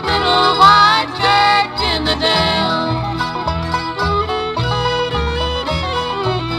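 Country band playing an instrumental passage with a bass line moving under the melody, without singing.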